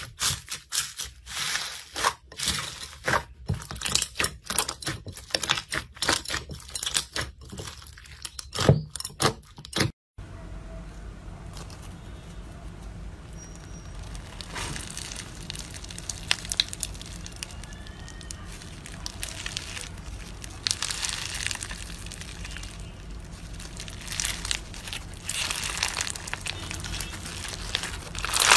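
Hands squeezing floam (slime packed with foam beads), giving a fast run of crunchy crackles and pops. After a short break about ten seconds in, a glossy glitter slime coated in foam-ball slime is squeezed, giving quieter, steadier crinkling and squishing with occasional louder bursts of crackle.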